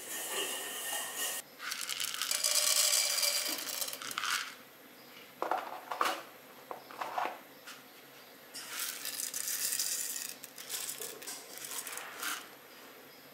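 Chana dal and urad dal tipped into hot oil in a nonstick pan: a hissing sizzle with grains clicking against the pan. The sizzle comes in two spells, one at the start and a second about two-thirds through, with a few scattered clicks between.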